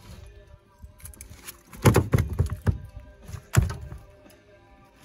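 Background music with steady held tones, and a run of dull thumps a little under two seconds in, the loudest of them near the middle.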